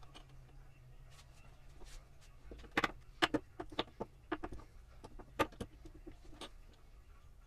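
Irregular clicks and light knocks as an aluminium ring is fitted by hand onto a floor scale's load-cell foot, with the sharpest clicks about three seconds in and again past five seconds.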